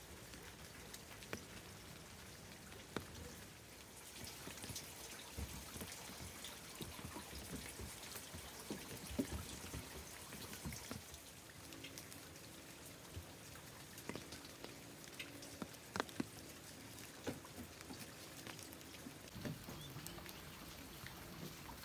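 Small hand hoe chopping into wet garden soil, irregular sharp knocks a second or two apart, over a faint steady patter of light rain.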